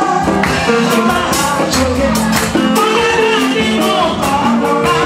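Nigerian Seraphic gospel music performed live: a woman sings into a handheld microphone over a band with a steady, driving beat.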